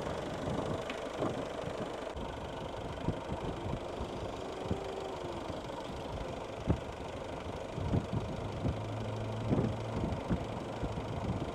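Water glugging and splashing in irregular clicks as it is poured from a collapsible plastic water container into a Mitsubishi Pajero's radiator, topping up an engine that has been running hot. A steady low engine hum comes in about two-thirds of the way through.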